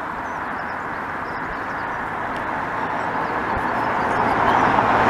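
Road traffic on a busy road: a steady rush of tyres and engines that grows louder toward the end as a vehicle approaches.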